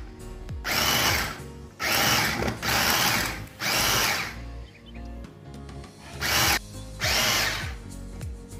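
Hand-pressed plunger chopper whirring as its spinning blades cut through onions and ginger: about six quick presses, with a pause of about two seconds midway.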